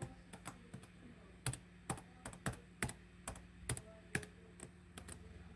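Computer keyboard typing a password: a run of about fifteen uneven, separate key clicks.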